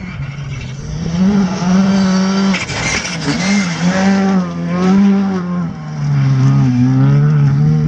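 Skoda Fabia R5 rally car's turbocharged four-cylinder engine driven hard on a gravel stage, its revs rising and dropping several times as it passes close by and pulls away.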